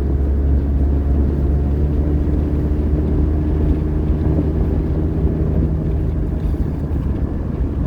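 Car engine and road noise heard from inside the cabin while driving: a steady low rumble with a constant engine drone.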